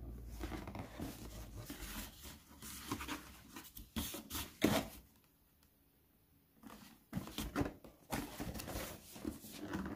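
Cardboard shoe box being opened and handled: irregular scraping and rustling, with one sharp knock about halfway through and a short quiet pause after it.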